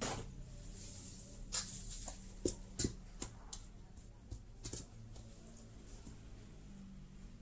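Metal spoon stirring a wet flour mixture in a stainless steel bowl: soft scraping with a handful of light clinks of spoon on bowl, most of them in the first five seconds, over a low steady hum.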